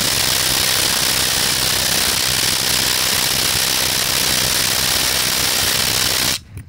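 Ridgid Octane 1/4-inch cordless impact driver on a 3 Ah battery hammering steadily on a wheel lug nut torqued to about 110 ft-lb. It stops abruptly near the end.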